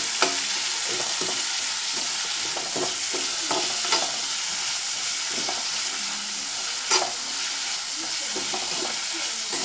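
Chopped onions sizzling as they sauté in hot coconut oil in a pan, stirred with a spoon, with a few sharp knocks of the spoon against the pan.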